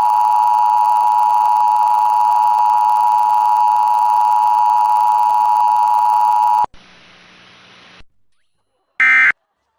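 Emergency Alert System two-tone attention signal, a steady loud dual tone that cuts off suddenly about two-thirds of the way in. After a short hiss come two brief warbling digital data bursts near the end, the SAME end-of-message code.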